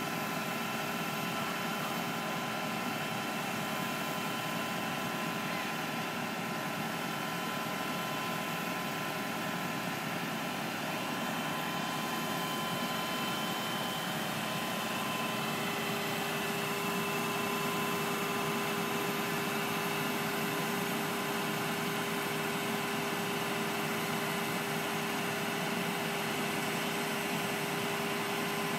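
Knuckle boom truck's engine running steadily, driving the crane's hydraulics as the grapple lifts and swings a heavy stump, with a steady mechanical whine; one lower tone in the whine grows stronger about halfway through.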